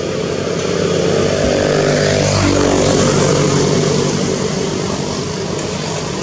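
Engine drone of an aircraft passing over, a steady multi-toned hum that swells to its loudest about three seconds in, drops in pitch as it passes, and then fades somewhat.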